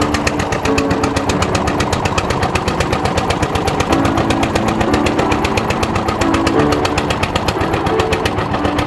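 Boat engine running steadily with a fast, even knocking beat.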